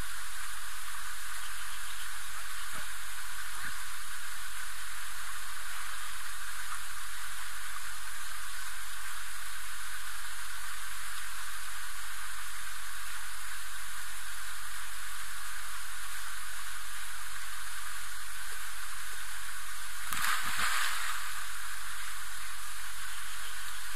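Steady hiss with fine crackling all through, and a brief louder rush of noise about twenty seconds in.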